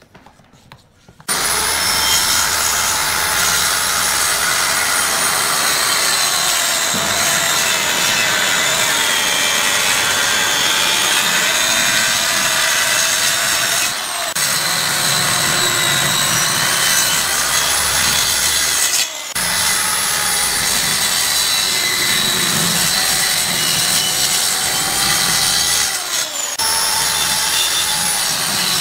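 Handheld circular saw cutting through a glued-up pine table top, starting about a second in. It is a steady high whine whose pitch sags a little as the blade takes the load, with a few brief dips.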